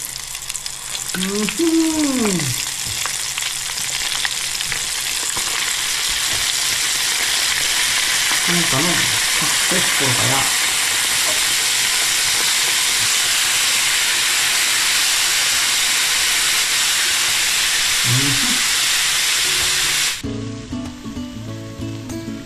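Flour-coated chanterelle mushroom pieces deep-frying in a pan of hot oil: a loud, steady sizzle. It cuts off suddenly near the end, where music takes over.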